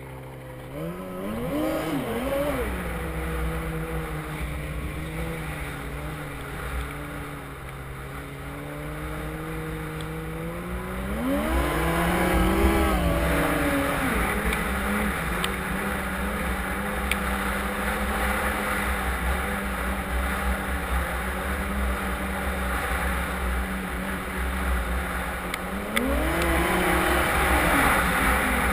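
Yamaha Apex snowmobile's four-cylinder four-stroke engine running under way. It revs up and falls back three times: about a second in, about twelve seconds in, and near the end. A low rumble lies underneath.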